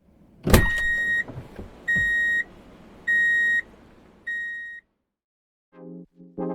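A sharp click, then four evenly spaced high electronic beeps, each about half a second long and a little over a second apart, the last one quieter. Music with a brass-like tone begins near the end.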